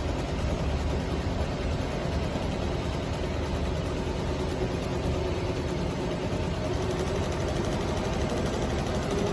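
ZY-EM1202F two-head, twelve-needle flat-bed embroidery machine running, a steady fast mechanical rattle of the needles stitching.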